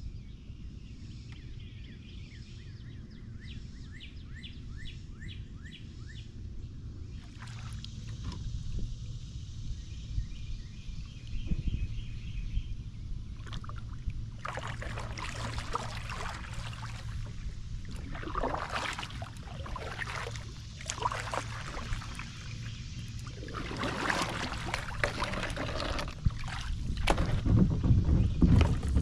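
Kayak paddle strokes in the water: a splashing stroke every two to three seconds through the second half, after a quieter stretch of steady low water and wind noise. Near the end a louder low rumble as the hull runs aground on the boat ramp.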